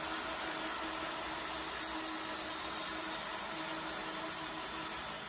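Belt grinder running with a steel knife blade pressed against its abrasive belt, profile grinding: a steady hiss of belt on steel over the machine's hum, which cuts off suddenly at the end.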